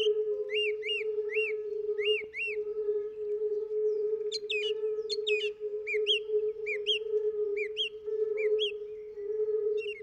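Small songbird chirping: short arched notes, often in pairs, repeated about every half second, with a quicker run of sharp notes around four to five seconds in. Under it runs a steady held low tone.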